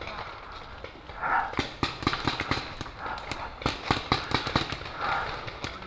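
Quick footsteps crunching through dry fallen leaves, with a rapid run of sharp pops and clicks among them that is typical of paintball markers firing.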